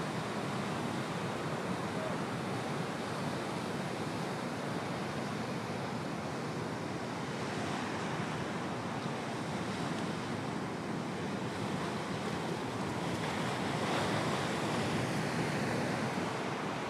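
Ocean surf breaking on a point break: a steady wash of waves, swelling louder about thirteen seconds in as a wave breaks closer.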